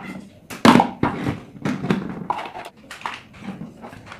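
Hard plastic parts of an electric fan's housing knocking and clattering as they are handled and worked with a screwdriver on a workbench, with a loud knock just under a second in.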